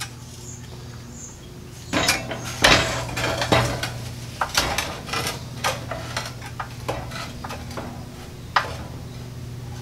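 A small engine is set down on a steel engine plate and shifted into place: irregular metal clanks, knocks and scrapes start about two seconds in, are heaviest over the next couple of seconds, then thin out, with a last sharp knock near the end.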